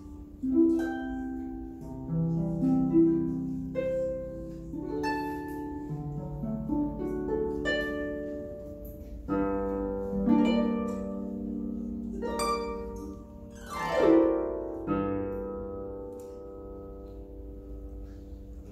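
Solo harp playing plucked notes and chords, with a quick sweep across the strings about fourteen seconds in and a closing chord left to ring over the last few seconds.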